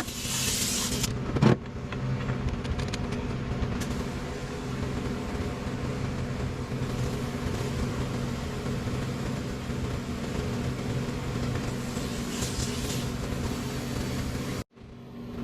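A steady low mechanical hum, with one sharp knock about a second and a half in. The sound drops out briefly near the end.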